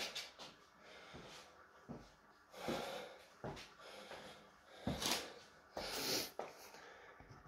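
A man breathing hard after a heavy barbell back-squat set: a run of loud, uneven breaths about one a second, the strongest about five and six seconds in.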